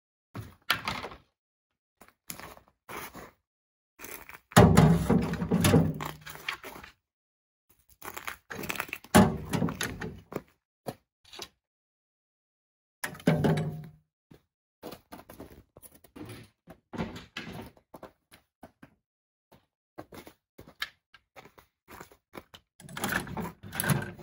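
Skis and ski poles clattering and knocking against each other and the gear bucket's metal frame as they are stacked in: a string of separate thunks and clacks with short gaps, the heaviest about five seconds in.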